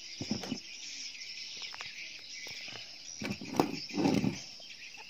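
Steady high chirring of crickets or other insects throughout, with a few short rustles and knocks of hands handling a prawn, the loudest about three and a half to four seconds in.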